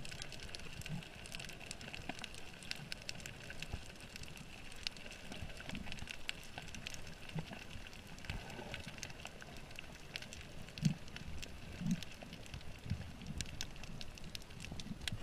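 Underwater crackle of snapping shrimp on a reef, a dense stream of small sharp clicks picked up through a dive camera's housing, with a few soft low thumps in the second half.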